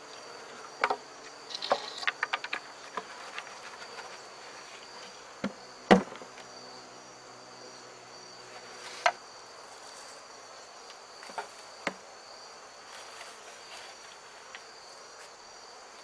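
Crickets chirring steadily, with honeybees buzzing around an open hive. Wooden hive boxes knock and clatter as they are handled: a quick run of small clicks about two seconds in, a sharp knock about six seconds in that is the loudest sound, and a few lighter knocks later.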